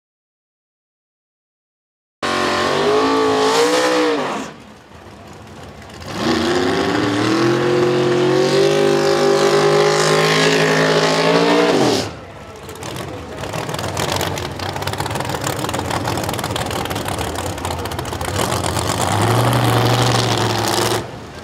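Drag race car engines at full throttle. After about two seconds of silence an engine comes in loud, its pitch rising and falling, then runs hard with its pitch climbing slowly for several seconds before dropping away sharply. A rougher, noisier engine sound follows.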